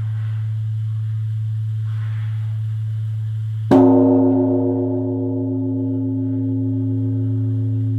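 Korean Buddhist temple bell (beomjong) struck once, about three and a half seconds in, then ringing on with slowly fading tones. A steady deep hum sounds throughout.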